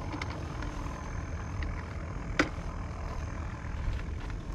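Small motorcycle engine running at a low idle, with one sharp click about halfway through.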